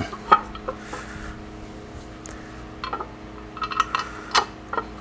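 Small metal clicks and taps as bolts are set into and handled on the Maytag 72 engine's crankcase: one sharp click near the start, then a quick run of clicks past the middle, over a steady low hum.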